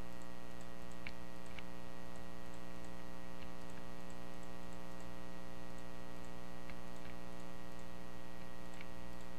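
Steady electrical mains hum with a buzzy stack of overtones. A handful of faint, scattered computer mouse clicks sound over it as the clone tool is dabbed.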